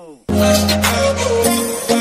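Music cuts in abruptly just after the start, a held chord at first, then a quick even beat.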